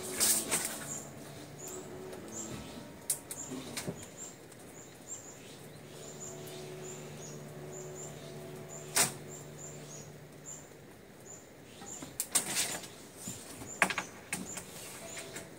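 Handling noises from measuring a plywood sheet with a tape measure: scattered clicks and knocks, with a few sharper snaps about a second in, around the middle and near the end. Behind them, faint high chirps repeat every fraction of a second along with a faint low hum.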